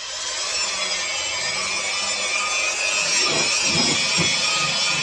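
Electric polisher whining as it picks up speed at the start and then runs on steadily, its pad working on a plastic headlight lens.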